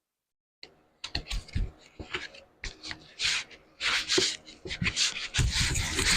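Sheet-metal panel work by hand: irregular scraping and rubbing strokes with small clicks and knocks, starting abruptly about half a second in.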